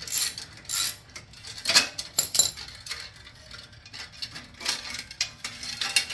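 Ratchet and socket working the strap clamps of a Harley-Davidson Dyna's exhaust heat shield: irregular metallic clicks and clinks of tool on metal.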